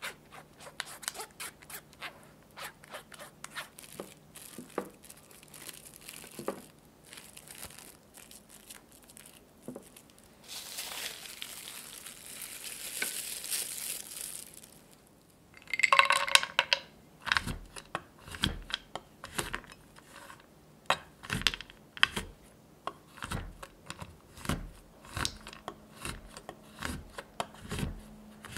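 Silicone spatula scraping thick custard cream through a fine metal strainer, with soft scrapes and clicks, then plastic wrap crinkling as it is pressed over the custard. After that comes a knife chopping chocolate on a wooden cutting board: steady chops, about one or two a second.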